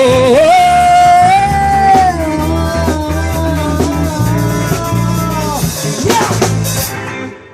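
Live band ending a song: a singer holds a long note over bass and drums, then the band plays the closing bars, with a final cymbal hit about six seconds in before the music stops.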